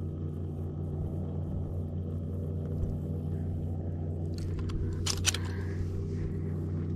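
Steady low mechanical hum of a motor on a bass boat, running evenly, with a few sharp clicks about five seconds in.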